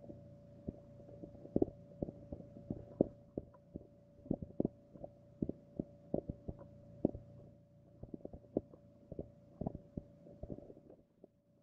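Sound heard underwater beneath the ice: irregular dull knocks and clicks, a few a second, over a steady low hum, dying away near the end.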